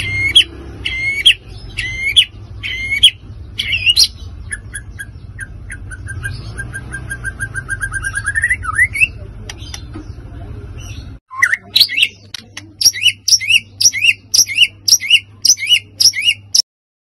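White-rumped shama singing hard in a fired-up state: loud repeated whistled phrases, then a fast run of short notes that sweeps upward, and after a break a quick series of sharp repeated notes, about three a second, that stops abruptly near the end.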